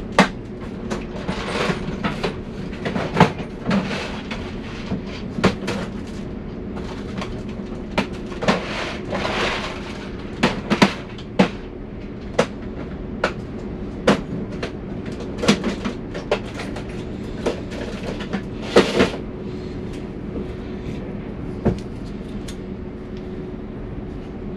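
Tools and small parts being handled on a workbench during soldering work: irregular sharp clicks and taps, a few brief scraping sounds, over a steady low hum.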